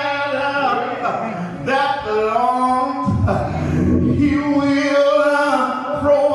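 A male preacher's voice sung rather than spoken, holding long pitched notes in a few drawn-out phrases with short breaks between them.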